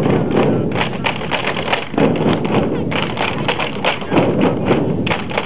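Many drumsticks beating a giant drum at once, a dense, irregular clatter of hits with no steady beat.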